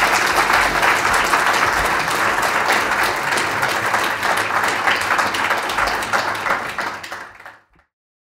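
Lecture audience applauding, a dense run of many hands clapping that thins out and cuts off suddenly near the end.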